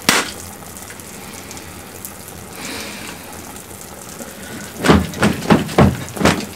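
A pistol clicks once as it fails to fire, then a steady hiss. In the last two seconds comes a run of loud thumps, about three a second.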